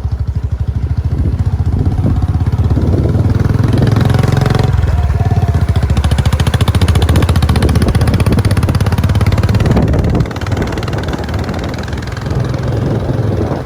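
Motorcycle engine running with a steady, even pulsing beat, loud and close, easing off and getting quieter about ten seconds in.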